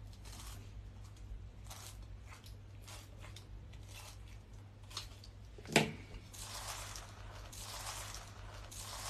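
Slime being worked by hand: soft, irregular squishing and crackling, with one sharp click about six seconds in and a denser wet hiss after it. A steady low hum runs underneath.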